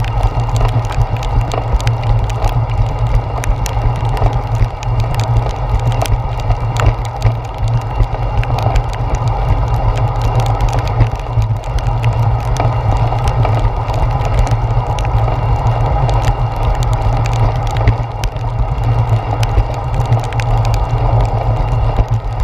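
Steady, muffled low rumble of a bicycle ride in heavy rain, picked up by a handlebar-mounted GoPro Hero 4, with many small irregular taps from raindrops striking the camera.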